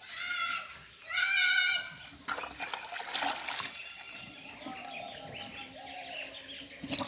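Two short, wavering bleat-like animal calls in the first two seconds, then the wet slurping and crunching of a cow feeding from a trough.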